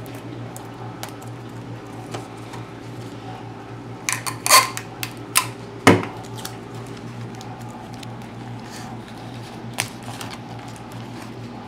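Hands handling sticky tape and newspaper on a cardboard tube: a short run of crackles about four to five seconds in, then a knock on the wooden table, over a steady low hum.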